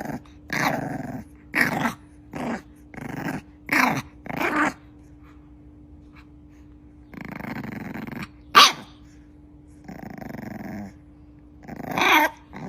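Puppy growling in a series of short bursts, about six in the first five seconds, then a few longer growls, with one short, sharp, louder bark about eight and a half seconds in. A faint steady hum runs underneath.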